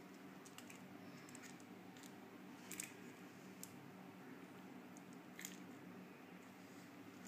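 Near silence: room tone with a steady faint low hum and a few faint scattered clicks and rustles, the clearest nearly three seconds in and another about five and a half seconds in.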